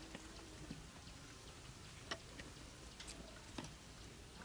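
A few faint, scattered clicks and ticks from hands working a plastic water bottle and its screw cap.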